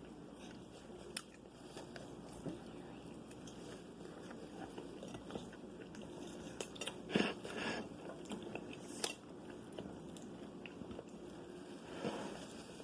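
Close-miked chewing and biting of fried food, wet mouth sounds with scattered sharp crunches, the loudest run of crunches a little past halfway.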